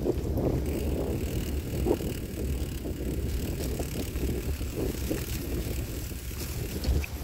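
Bicycle rolling over a rutted dirt track, with wind rumbling on the microphone and a few short knocks as the tyres hit bumps.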